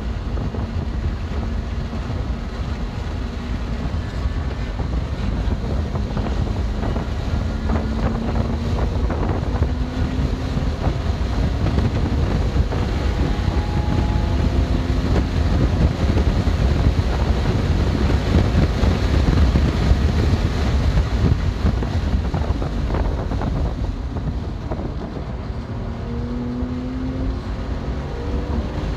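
2020 BMW M2 Competition's twin-turbo straight-six being driven hard on track, its pitch rising several times as it accelerates, under a heavy, steady rumble of road and wind noise.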